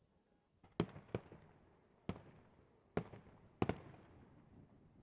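Fireworks bursting in a display: about six sharp bangs at uneven intervals, each trailing off in a rumbling echo, with two nearly together near the end.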